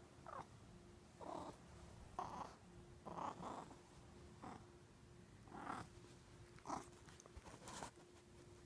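Sleeping cat snoring: short, fairly high-pitched snores about once a second, some falling in pitch, over a faint steady hum.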